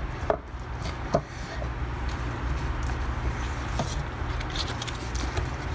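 Silicone pastry brush dabbing butter around the cups of a metal muffin pan, giving a few light taps and clicks, over a steady low background hum.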